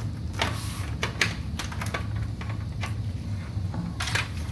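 Handling noise of a power-supply cable being fed through a computer case: a few light clicks and rustles of the cable and its plug against the case, the strongest near the end, over a steady low hum.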